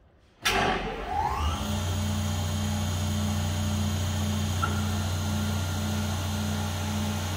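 SCM Class TI 120e spindle moulder switched on: about half a second in the motor starts with a sudden jump in level and spins the cutter head up with a rising whine over about a second. It then runs steadily at speed with a low hum.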